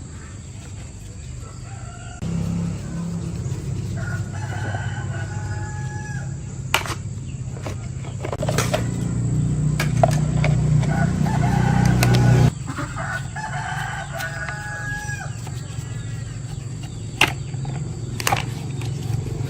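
A rooster crowing several times, long held calls, over a low steady machine hum that comes in about two seconds in, grows louder and drops off sharply about two-thirds through; a few sharp clicks.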